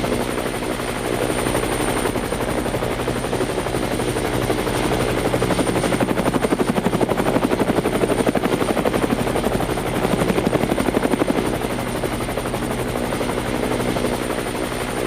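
Helicopter running with a fast, even chop of the rotor blades over a steady engine hum and a thin high whine; the blade beat grows louder in the middle and eases off again.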